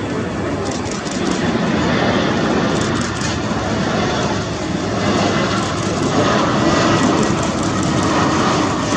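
Airbus A320neo jet airliner on final approach with its landing gear down: a steady rush of engine and airflow noise that grows slowly louder in the second half.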